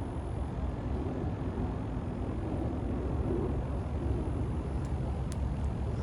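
Steady low rumbling noise, with a few faint clicks about five seconds in.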